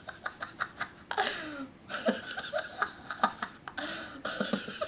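A person laughing and giggling in short bursts.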